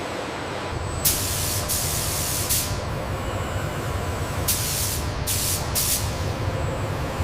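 Short bursts of hissing air, three about a second in and three more about four and a half seconds in, over a steady low machinery rumble, the kind of hiss pneumatic or hydraulic equipment makes when it vents.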